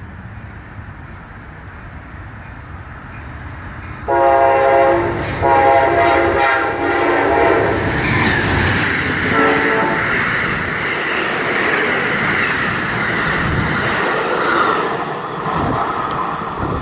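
Amtrak passenger train approaching and passing, its locomotive horn sounding a horn show. The horn starts abruptly about four seconds in with two long blasts separated by a brief break, then gives a short blast a few seconds later. The train's rumble and wheel clatter build before the horn and stay loud as the cars go by.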